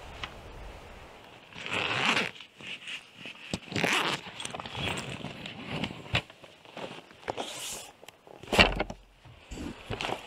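Zip on a black holdall being pulled open in several short rasps, with rustling and clicks of kit being handled. A louder knock with a dull thump comes about three-quarters of the way through.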